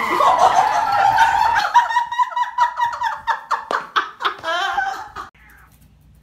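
A person laughing hard, high-pitched and in rapid pulses, cut off suddenly about five seconds in.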